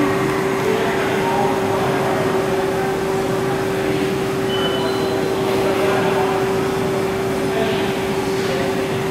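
Steady hum of running CNC machine-shop equipment, with one constant mid-pitched drone.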